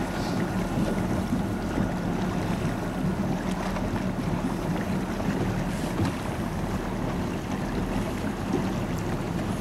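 Tow boat's engine running steadily at low speed, a constant low hum, with wind buffeting the microphone and water washing against the hull.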